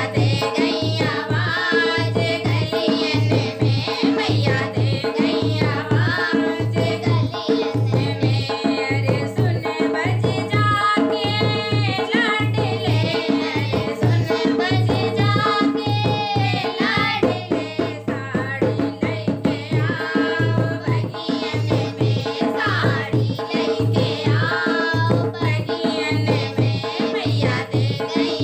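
Devotional Hindi folk bhajan: a voice singing to an even, driving hand-drum beat.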